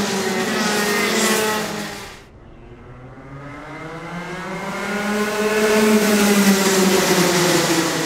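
A pack of Rotax 125cc two-stroke racing kart engines at full throttle, several engines howling together with pitches rising and falling. The sound cuts off sharply about two seconds in, then a second pack grows louder as it approaches, loudest about six seconds in, and eases slightly near the end.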